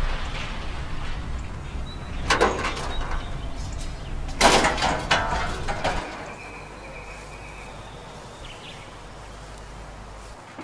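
A deep rumble with two loud bangs, the second ringing briefly. The rumble then drops to a quieter steady hum, with a brief high tone partway through.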